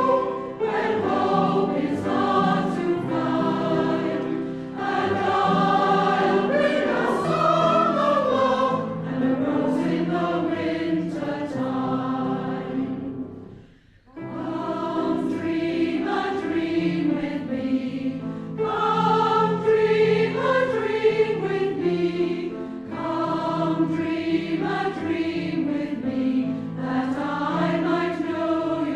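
A choir singing a hymn in sustained, held notes, with a brief break about halfway through, as between lines or verses.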